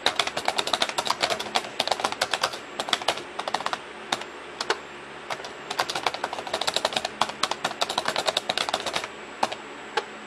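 Typing on a computer keyboard: quick runs of key clicks, thinning out to a few scattered taps about four seconds in, then another fast run, with only a couple of stray clicks near the end.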